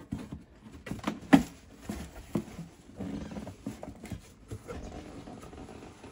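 Cardboard scraping and knocking as a tight-fitting box is worked out of a cardboard shipping box, with a sharp knock just over a second in.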